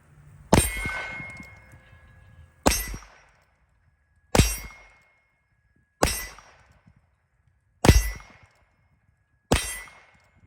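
Six shots from a Heritage Rough Rider Rancher .22 Long Rifle single-action revolver, evenly paced about a second and a half to two seconds apart, each with a brief ringing after it. Very loud.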